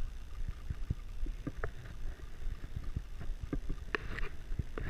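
Low wind rumble on the microphone with scattered light clicks and knocks.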